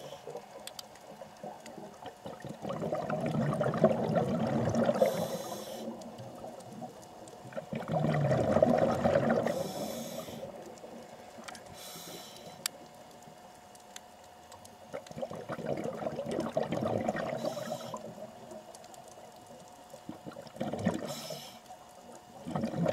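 A scuba diver breathing through a regulator underwater: four surges of exhaled bubbles, a few seconds apart, with short hisses from the regulator between them.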